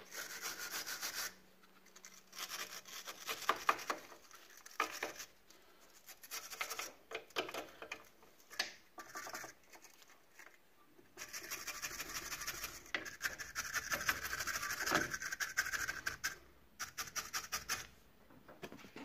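Wire brush scrubbing back and forth over rusty metal at the front hub and brake caliper, in bouts of fast scratchy strokes with short pauses, the longest run in the second half.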